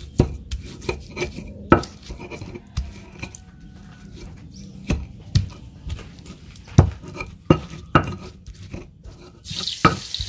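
Stone pestle (ulekan) knocking and scraping in a stone mortar (cobek): irregular thuds as tomato is crushed into raw sambal with shallots, garlic and shrimp paste. A hiss comes in near the end.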